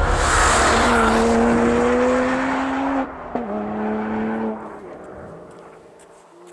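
Rally car passing close at full speed, then its engine pulling hard and rising in pitch as it accelerates away. It shifts up about three seconds in with a short crack, and the engine note fades into the distance.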